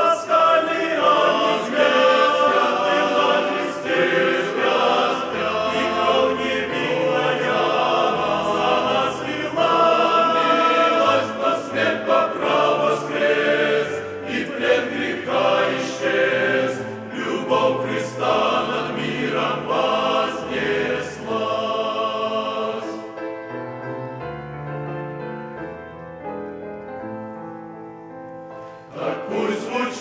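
Men's choir singing a hymn with grand piano accompaniment. About three-quarters of the way through the choir stops and the piano plays alone, getting quieter, and the choir comes back in just before the end.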